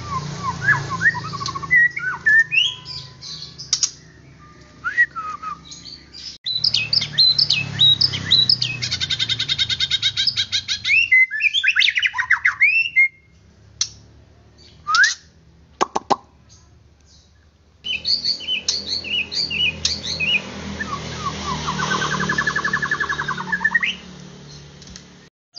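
Male white-rumped shama in full, excited song: a varied run of clear whistles, rising and falling glides, trills and rapid repeated notes. The song drops to a few isolated sharp notes for a few seconds in the middle, then resumes.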